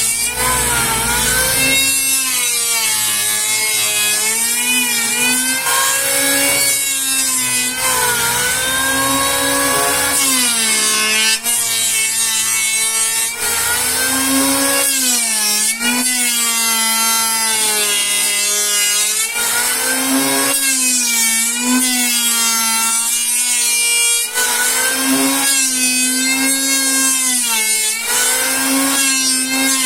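Sawmill saw cutting Borneo ironwood (Eusideroxylon zwageri), a loud steady whine over a high hiss whose pitch sags and recovers every couple of seconds as it works through the wood.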